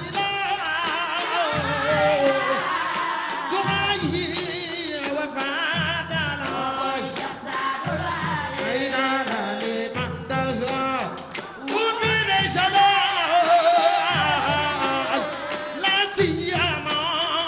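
A lead singer and a chorus of women singing a melismatic devotional praise song, the voices wavering in long ornamented lines over drums that give a low beat about every two seconds.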